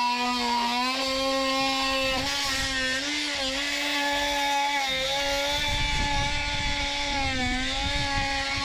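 A small motor running at a steady high pitch, dipping briefly in speed several times as if under changing load.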